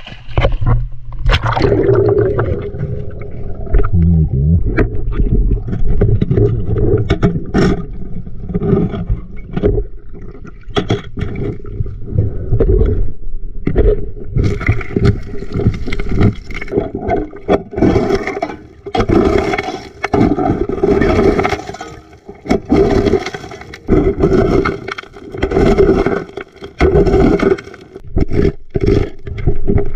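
Hand tools scraping and prying gravel out of cracks in river bedrock, with stones clattering and knocking irregularly throughout.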